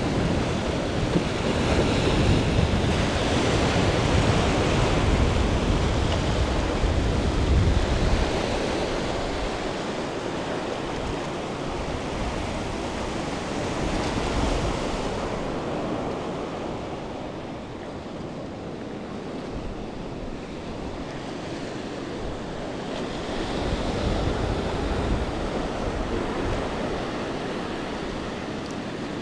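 Small ocean waves washing in over shallow sand. Wind rumbles on the microphone, strongest in the first several seconds, and then the wash goes softer, rising again twice.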